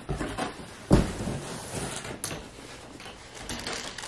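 Handling noises of a handbag being moved in the hands: a dull thump about a second in, then light rustles and a small click.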